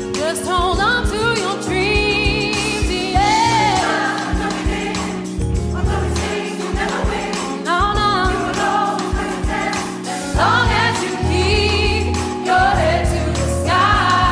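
Gospel-style choir singing, the voices held on long notes with wide vibrato over a low instrumental accompaniment.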